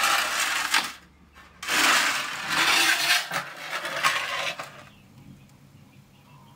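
Metal baking tray loaded with round cake tins scraping and sliding across the floor of a wood-fired masonry oven, with metallic clinks: a short scrape at the start, then a longer one from about one and a half seconds to nearly five.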